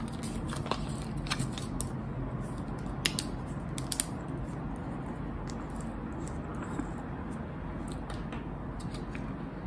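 A few short, sharp plastic clicks and crinkles as the screw cap is twisted off a fruit-smoothie squeeze pouch, the loudest about three and four seconds in, over a steady low hum.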